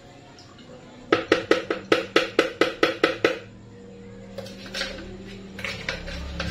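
Metal kitchen bowl struck rapidly with a utensil: about a dozen ringing taps, some five a second, stopping after about two seconds. A few scattered knocks and clatter of kitchenware follow.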